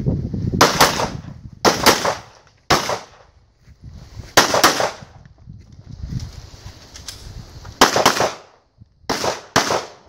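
A string of pistol shots fired during an IPSC stage, mostly in quick pairs about a quarter second apart, with short pauses between the pairs.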